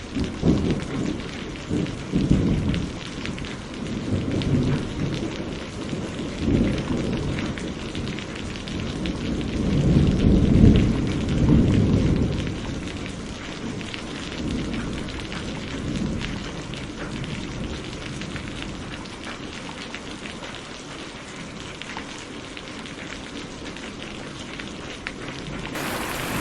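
Steady rain with rolling thunder. The thunder rumbles low several times, swells loudest about ten seconds in and dies away a little past the middle, leaving only the rain.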